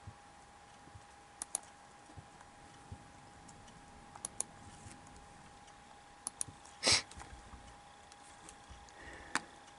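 Scattered clicks of a computer mouse and keyboard, several in quick pairs, with a brief louder noise about seven seconds in. A faint steady hum runs underneath.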